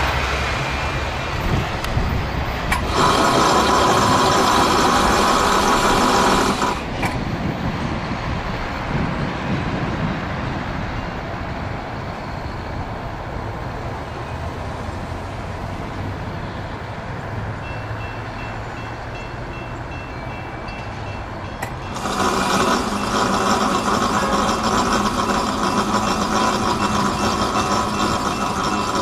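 Freight or passenger locomotive horn sounding two long steady blasts over the rumble of a passing train, the first about 3.5 s long and the second about 7 s long near the end. A faint, evenly repeating high beep, like a reversing vehicle's alarm, runs through the second half.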